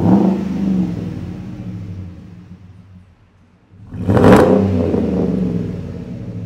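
A ROUSH-supercharged 6.2 L V8 in a Ford F-150 SVT Raptor being revved twice at a standstill through its ROUSH high-performance exhaust. The first rev sits right at the start and dies away. The second, about four seconds in, climbs sharply and then falls back.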